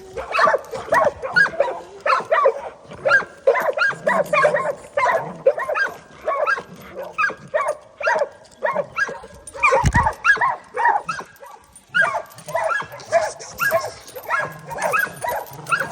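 Pit bulls barking over and over in short barks, two or three a second, easing off briefly about ten seconds in, where a dull thump sounds.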